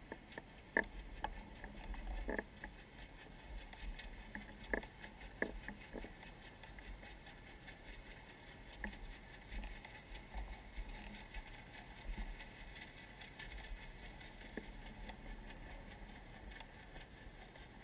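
Water lapping at a kayak's hull, with scattered small knocks and clicks, most of them in the first few seconds, over a faint steady low rumble.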